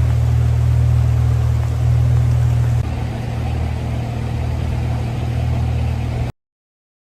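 An engine running steadily with a low, loud rumble that cuts off suddenly about six seconds in.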